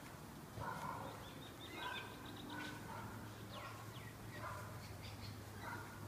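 Birds chirping faintly in short, repeated calls, some sliding down in pitch, over a steady low hum.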